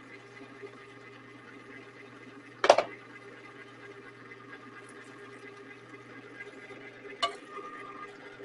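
Electric ice cream maker's motor running with a steady low hum. A sharp clack about a third of the way in is the loudest sound. Near the end a smaller knock is followed by the ice cream mix being poured into the freezer canister.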